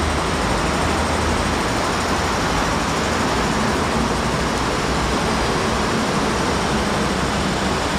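Steady rumbling background noise on a metro station platform, with no train at the platform. The level stays even throughout.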